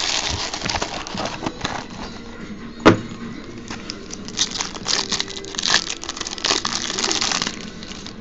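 Plastic wrapping crinkling as a sealed trading-card box is unwrapped and its cardboard flap opened by hand, with one sharp snap about three seconds in. Near the end comes a run of denser crinkling as the plastic-wrapped pack inside is pulled open.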